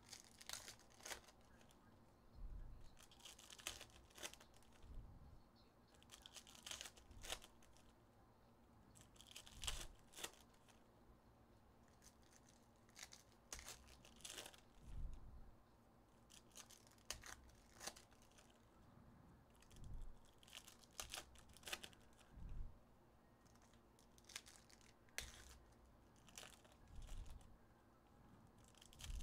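Foil trading-card pack wrappers being torn open and crinkled by hand, in short crackly bursts every second or two, with a few soft low thumps as packs and cards are handled on the table.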